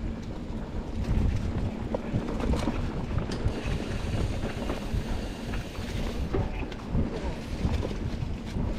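Wind buffeting the microphone over the low rumble of a mountain bike rolling over a rough dirt trail, with scattered clicks and rattles from the bike.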